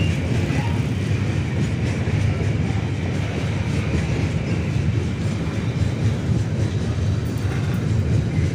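Wagons of a long coal freight train rolling past on the rails: a steady, unbroken rumble of wheels and wagon bodies.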